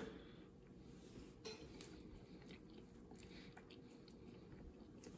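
Near silence, with a few faint soft clicks and ticks from fingers pulling cooked turkey wing meat off the bone.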